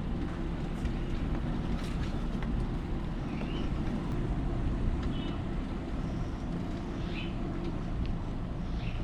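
Car driving slowly along a street: a steady low rumble of engine and tyres, with a few faint short high chirps.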